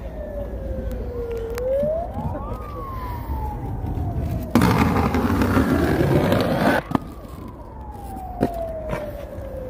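An emergency-vehicle siren wailing, its pitch sliding slowly down, up and down again. From about four and a half seconds to seven, a loud scrape of an aggressive inline skate grinding along a concrete ledge cuts off sharply with a knock, and a few clacks of skate wheels on the pavement come through.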